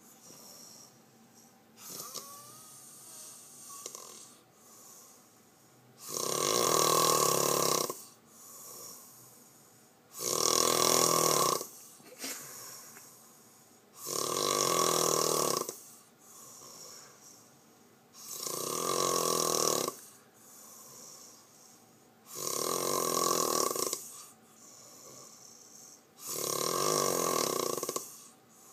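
Loud snoring in a steady rhythm: after about six seconds of quieter breathing, six long snores come roughly every four seconds, each lasting nearly two seconds, with softer breaths between them.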